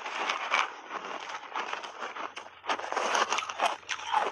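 Refrozen shaved ice coated in matcha powder being chewed in the mouth: dense, irregular crunching and crackling, picked up close by a lapel microphone. The crunching is loudest near the start and again through the second half.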